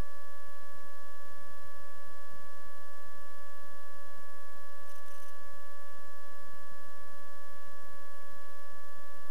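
Steady electrical hum in the aircraft's intercom audio: one unchanging tone with two higher overtones over a faint even hiss.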